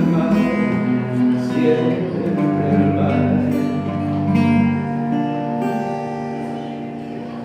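Closing instrumental bars of a song: cello with plucked-string accompaniment, the notes held and slowly dying away toward the end.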